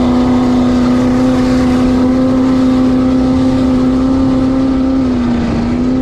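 Jet boat's junkyard 5.3-litre LS V8, running hard through open headers and holding a steady high note at speed. The note sags briefly about five seconds in and then comes back up, with a low rushing noise of water and wind underneath.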